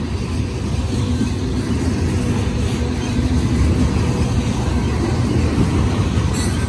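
Freight train cars rolling past, a steady heavy rumble of wheels on rails that grows a little louder about two seconds in.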